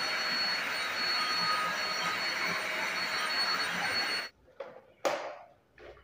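Agaro Regal Plus 800-watt stick vacuum cleaner running steadily with a high whine over its airflow, then cutting off abruptly about four seconds in. A few short plastic clicks and knocks follow as the dust container is handled.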